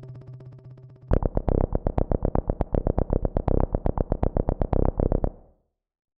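Access Virus TI-style synth patches from the OsTirus emulation plugin. A fading low pulsing note gives way, about a second in, to a bass-heavy patch playing a rapid pulsing sequence of about eight pulses a second, which cuts off a little after five seconds.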